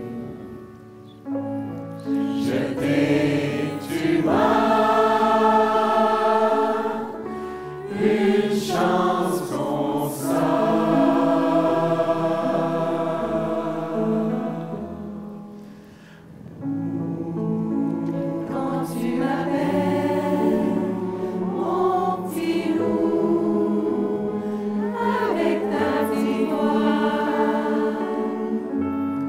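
A large mixed choir singing in harmony, holding long chords that swell and fade. The sound thins out briefly about a second in and again around sixteen seconds in.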